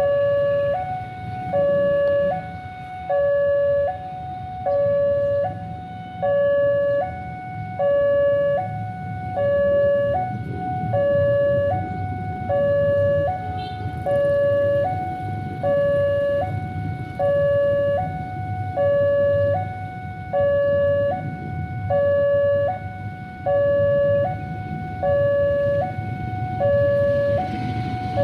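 Railway level-crossing warning alarm sounding an electronic two-tone signal, a lower and a higher note alternating steadily with each note lasting under a second, over a low rumble of waiting traffic. A rushing noise builds near the end as the train approaches.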